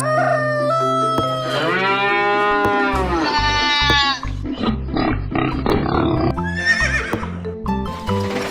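Farm-animal call sound effects over background music: a long call with a rise and fall about two seconds in, a higher one straight after it, and a short wavering call near the end.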